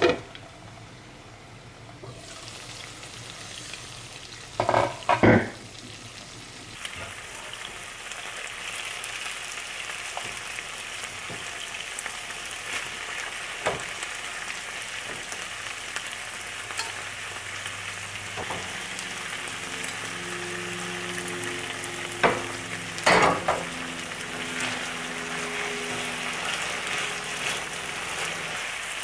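Chicken in a thick chili sauce sizzling in a nonstick frying pan, the sizzle growing louder after several seconds. A few sharp clanks of cookware come twice, a few seconds in and again later on.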